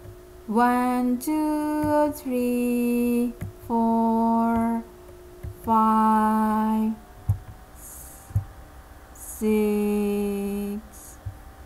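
A woman humming a slow, wordless tune in about six long held notes with short pauses between, and a few faint clicks in the gaps.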